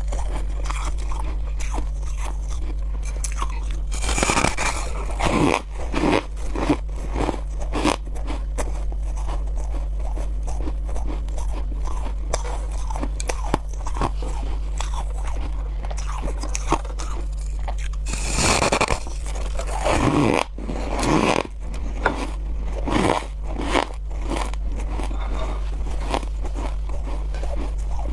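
Close-up crunching and chewing of chunks of freezer frost ice: dense crackling throughout, with louder clusters of bites about four seconds in and again from about eighteen to twenty-four seconds. A steady low hum sits underneath.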